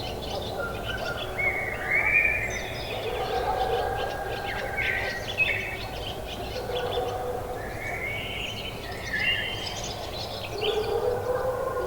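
Several birds chirping and singing in a morning countryside chorus, short overlapping calls throughout, over a steady low outdoor background hum.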